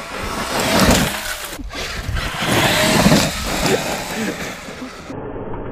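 Traxxas X-Maxx RC monster truck driving hard over loose gravel, its tyres crunching and throwing stones in uneven surges.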